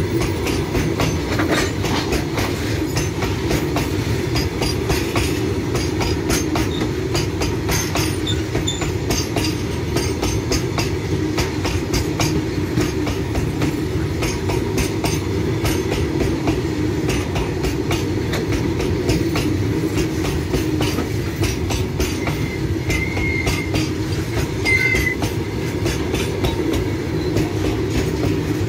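Long freight train of open-top steel wagons rolling past close by: a steady rumble with the clickety-clack of wheels over rail joints. Two brief high squeals come near the end.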